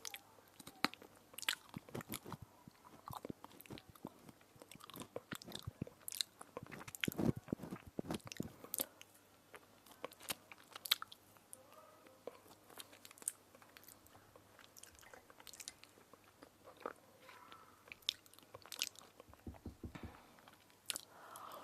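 Teeth biting and chewing a crisp edible spoon, with many irregular sharp crunches.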